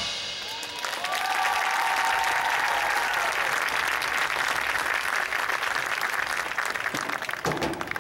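Audience in stadium stands applauding, with cheering, during a break in a marching band's music. Near the end, separate percussion hits come in as the band starts playing again.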